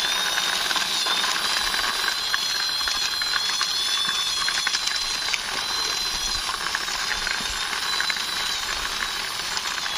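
Plastic toy army jeep pushed by hand along a rough concrete wall top: its wheels and gearing whir steadily with a high, slightly wavering whine and rapid fine clicking.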